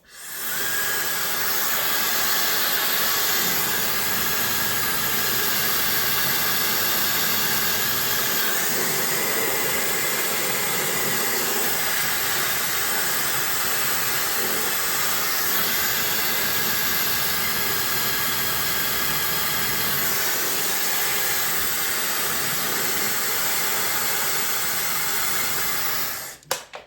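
HRYCF 160,000 RPM high-speed hair dryer blowing steadily, a strong rush of air with a faint high whine, switching on at the start and cutting off about a second before the end.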